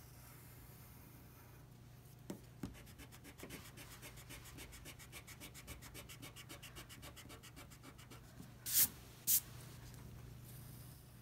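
Pencil eraser rubbing rapidly back and forth on paper, about ten strokes a second, after two light taps. Near the end there are two short, louder swishes.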